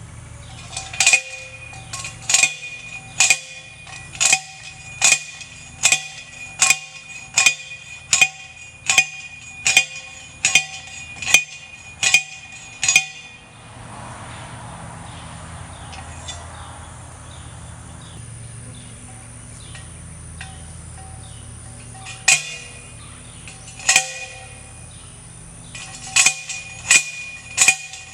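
Repeated metal-on-metal blows that ring sharply, about one a second for some thirteen seconds. A pause follows, then a few more strikes come quicker together near the end.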